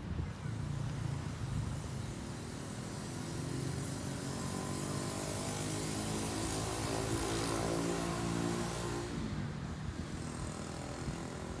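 A motor vehicle passes by: its engine hum swells from about four seconds in and fades away near nine and a half seconds. Underneath is a steady rush of wind and sea waves.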